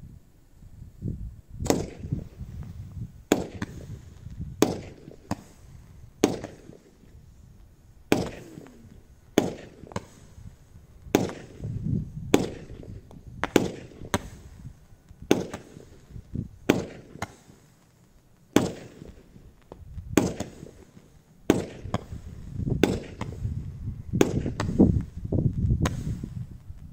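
A 16-shot consumer firework cake firing its shots one after another, a sharp bang every one to two seconds as each shell launches and bursts, with a low rumble underneath.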